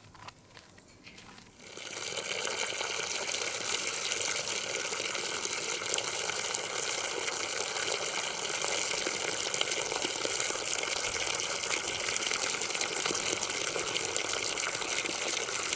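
Outdoor standpipe tap turned on a little under two seconds in, then a steady stream of water pouring and splashing into a gravel-filled concrete basin below.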